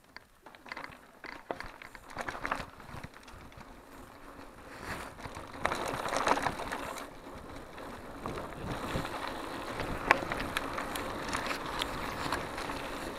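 Mountain bike rolling over a dirt and gravel trail: tyre noise and rattling of the bike, with scattered clicks from the freewheel hub. It grows louder about five seconds in.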